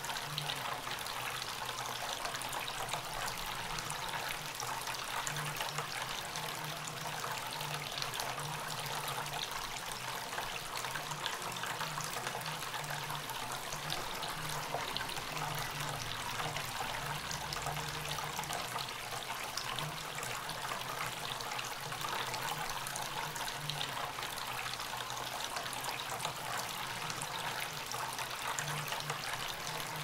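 Tabletop bamboo fountain running: a thin stream of pumped water falls from a bamboo spout onto pebbles in a bowl, making a steady trickling splash.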